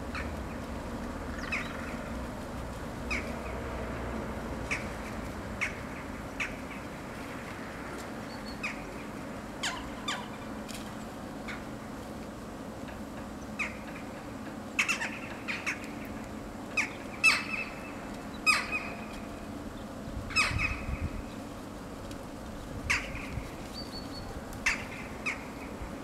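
Corvids of a feeding flock (hooded crows, rooks, jackdaws) giving short, sharp calls, sparse at first and coming more often in the second half.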